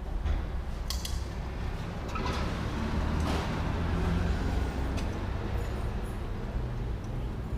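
A few scattered metal clinks and knocks, like tools and parts being handled, over a steady low rumble.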